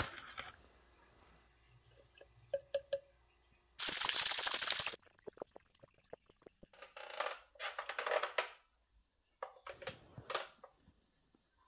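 Quiet handling sounds of preparing and drinking a powdered pre-workout drink: a scoop working in the powder, about a second of steady rushing noise a few seconds in, then scattered short knocks and rustles.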